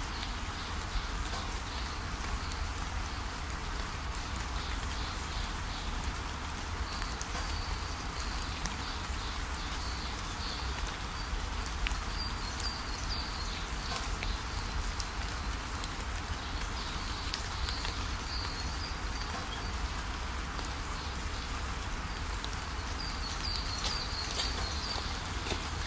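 Outdoor rural ambience: a steady hiss with a constant low rumble and faint, repeated high chirping calls.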